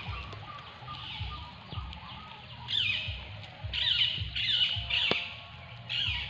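Birds calling in a run of short, loud bursts with quick sweeps in pitch, starting about halfway through and repeating several times.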